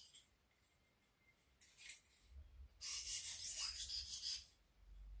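400-grit sharpening stone on a guided-rod clamp sharpener scraping along a boning knife's edge: a short scrape just before two seconds in, then one longer stroke about three seconds in. These are light strokes alternating from side to side to remove the burr. A low rumble follows near the end.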